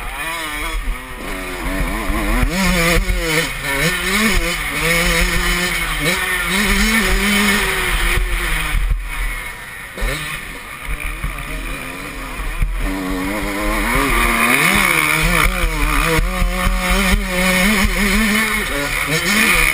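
Dirt bike engine revving up and down again and again as the rider accelerates, shifts and backs off, with a steady rush of wind noise beneath.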